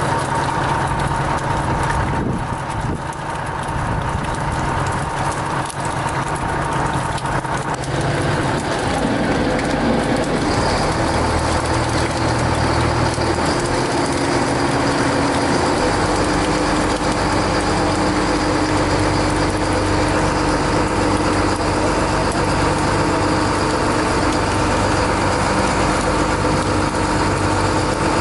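Fishing boat's engine running steadily, with a steady hum and low rumble whose tone shifts about ten seconds in.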